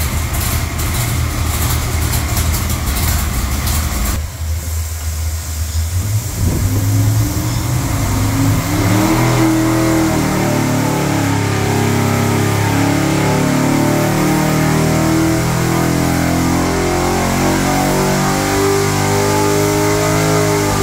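Big-block Chevrolet 632 cubic-inch V8 running on an engine dyno. After about four seconds it is loaded into a wide-open-throttle sweep, and its pitch climbs steadily for about fifteen seconds to over 6,000 rpm while making about 820 horsepower.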